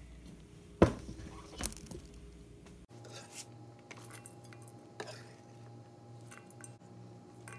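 A sharp knock of a knife on a wooden cutting board about a second in, the loudest sound, and a lighter knock shortly after. Then diced onion is scraped off a chef's knife into a stainless steel mixing bowl, with light clicks and scrapes of the blade against the bowl.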